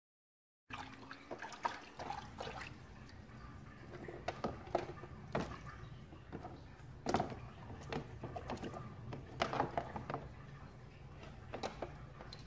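Water splashing and sloshing in a plastic tub as a flexible LED light strip is lowered in by hand. There are repeated small splashes and knocks, with a steady low hum underneath.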